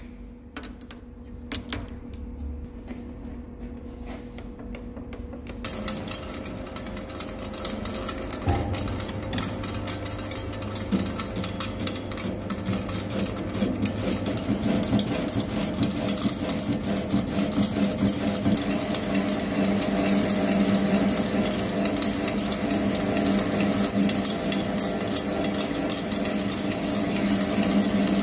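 A TM-26120G centre lathe turning a hydraulic cylinder barrel while a 12 mm carbide button insert machines off the weld at the barrel's end, with the cut's metallic rattle and a steady high whine. The first few seconds hold only a few clicks as the tool is set up; the lathe and the cut start about six seconds in and fill out about two seconds later.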